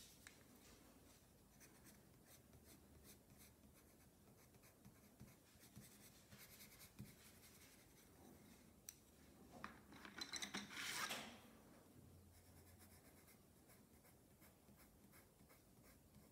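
Faint scratching of colored pencil strokes on paper, with a louder run of quick strokes about ten seconds in, as a colorless blender pencil and colored pencils are worked over the drawing.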